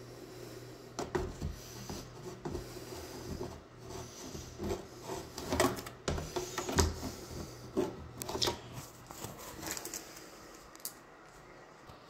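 Irregular clicks, taps and short scrapes of hands and phone handling around a brass door lock plate, loudest about six seconds in, over a low steady hum.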